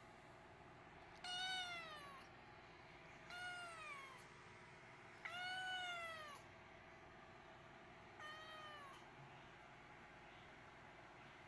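Black-and-white domestic cat meowing four times, a few seconds apart, each meow falling in pitch toward its end. The third meow is the longest and loudest, and the last is fainter.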